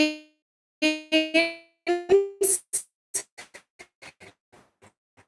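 A short electronic keyboard tune: a handful of plucked-sounding notes, the last two higher, then a run of quick ticks that fade away.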